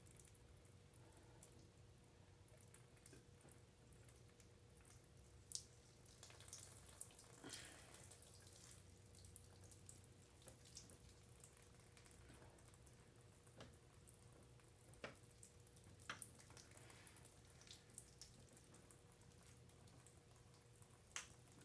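Near silence: room tone with a faint steady hum and a few scattered faint ticks.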